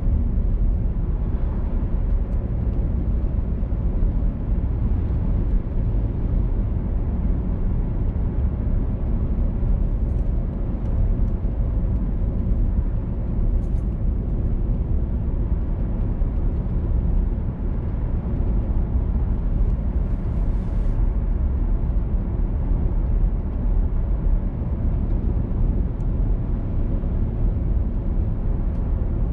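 A car driving along a road: a steady low rumble of engine and road noise that holds even throughout.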